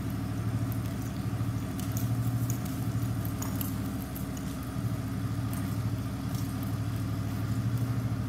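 Steady low hum of an idling engine with a fine, rapid pulse, and faint scattered high clicks and jingles over it.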